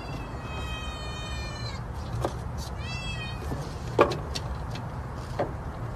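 Kitten meowing twice: one long meow, then a shorter one about three seconds in. About four seconds in, a sharp clack as the kitten pushes through the bent slats of a window blind.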